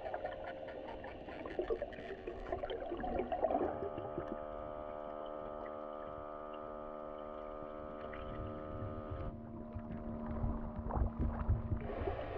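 Underwater sound: bubbling and gurgling with low rumbling, and a steady droning hum of one unchanging pitch through the middle that fades out near the end.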